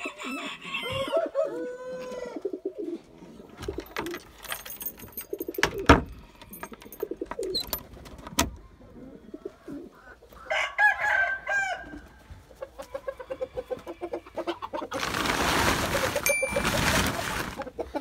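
Backyard pigeons cooing and chickens calling, with a rooster crowing near the start and again about halfway through. A sharp knock comes about six seconds in, and a burst of rustling noise near the end.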